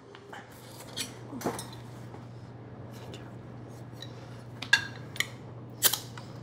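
Cutlery and dishes clinking now and then over a steady low room hum, which fades in at the start. There are a few sharp clinks, the loudest near the end.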